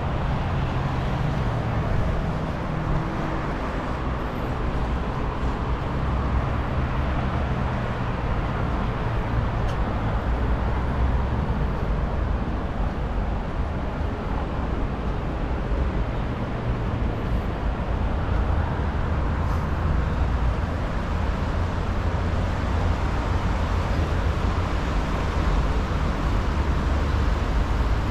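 Steady street traffic: cars and other vehicles going by, a continuous hum of engines and tyres with no single vehicle standing out.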